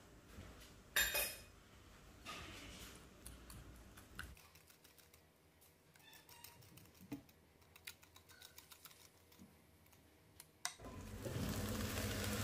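Wire whisk clicking and scraping against a glass bowl while whisking a thick white sauce, irregular light taps with a louder clatter about a second in. Near the end a steady hiss of onions frying in a pan takes over.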